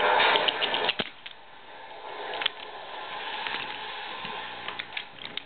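Toy train crash: a loud rushing clatter ends in a sharp bang about a second in, followed by quieter scattered clicks and knocks as the wreck settles.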